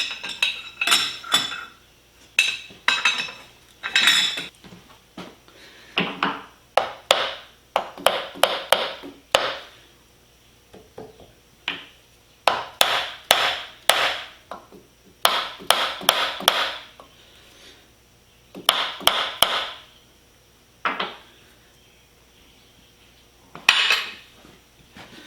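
Metal knocks, taps and clinks of steel tools and parts being handled around a machine vise, coming in quick clusters of several strikes with short pauses between them.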